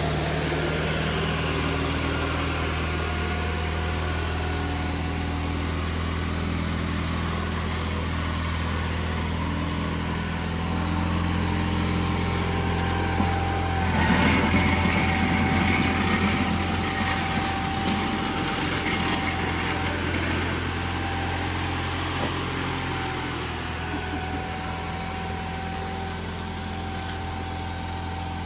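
Sears SS16 garden tractor engine running steadily. About halfway through it gets louder and rougher for a few seconds, then settles back.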